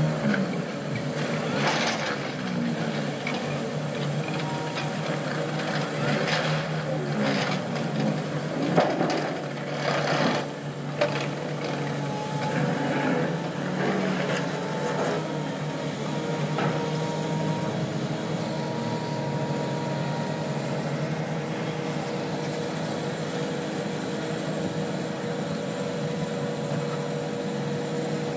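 Diesel engines of heavy excavators and an excavator-mounted earth auger rig running steadily. Irregular metal clanks and knocks come through in the first half, the loudest about nine seconds in.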